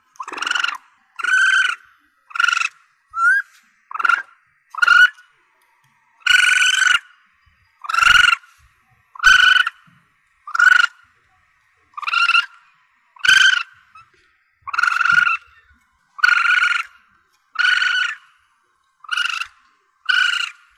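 Young Asian palm civet calling: a regular series of short, high, pitched cries, about one every second or so, with one brief rising squeak about three seconds in.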